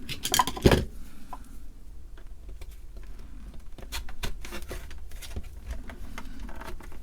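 Clicks, taps and light knocks of a power line cord and small plastic parts being handled, as the cord is fed through the cassette recorder's case. A cluster of louder knocks comes under a second in, followed by scattered lighter ticks.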